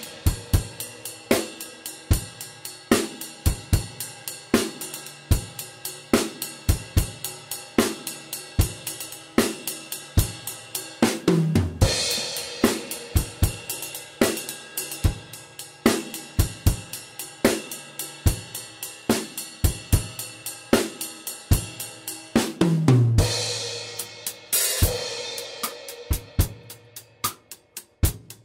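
Acoustic drum kit with Meinl cymbals played on its own: a steady beat of kick, snare and hi-hat. Crash cymbals ring out about twelve seconds in and again around twenty-three and twenty-five seconds. Near the end the playing drops to a softer run of quicker strokes.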